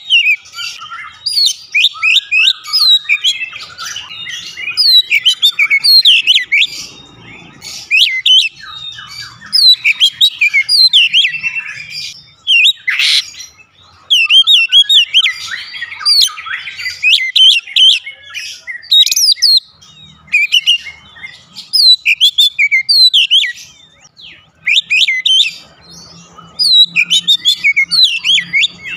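Oriental magpie-robin singing a fast, varied song of sharp whistles and chirps, the phrases following one another with only short pauses.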